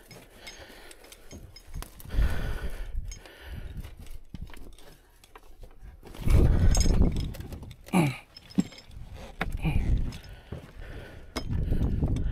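Metal hooks and hardware on tow straps clinking, with rustling and handling knocks, as straps are rigged to hook up a crashed car for winching.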